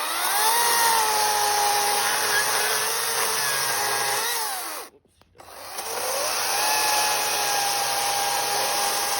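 Ego CS1800E battery chainsaw's electric motor whining up to speed and cutting through dried, hardened camphor laurel, its pitch sagging slightly under load. It winds down about four and a half seconds in, stops for a moment, then spins up again and cuts on.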